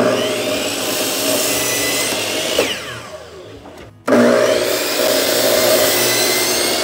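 A DeWalt miter saw starts and cuts a 45-degree bevel through a white AZEK PVC trim board, then its blade winds down with a falling whine. About four seconds in, the saw starts again for a second loud run.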